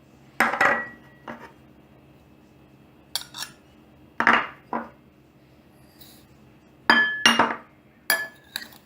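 A utensil clinking and knocking against a mixing bowl while butter is creamed with sugar and vanilla sugar. The clinks come irregularly, in small groups, and some leave a brief ringing tone.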